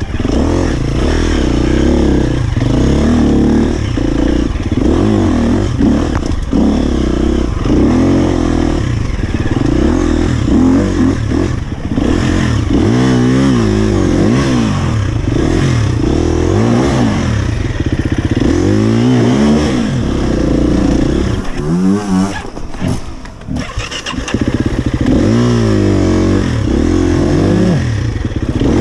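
Husqvarna FE 250 four-stroke single-cylinder enduro motorcycle being ridden, its engine note rising and falling over and over as the throttle is opened and closed through the gears. About 22 seconds in the throttle is shut and the engine briefly drops off before picking up again.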